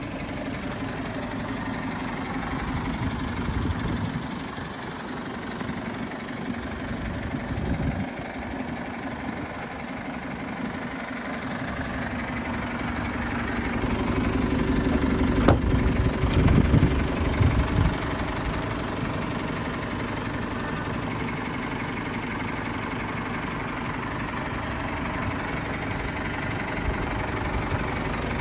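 A 2016 DAF LF210 truck's four-cylinder diesel engine idling steadily, growing louder for a few seconds about halfway through. A single sharp click comes midway.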